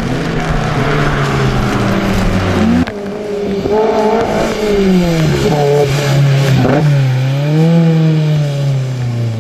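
Race car engines over a hiss of rain and wet tyres. About three seconds in the sound changes abruptly to a single small race car's engine, revving up and dropping back several times as the driver accelerates and lifts through a wet slalom course.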